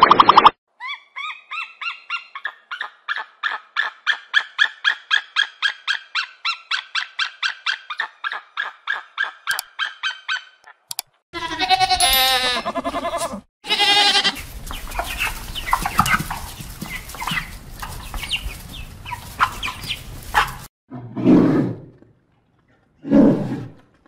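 A long run of rapid, evenly repeated pitched calls, about four a second. Then goats bleating, with the noise of a moving goat herd, and two short animal calls near the end.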